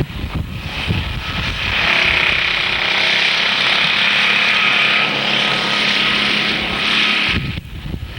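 A motor running steadily under a rushing hiss, then cutting off suddenly near the end.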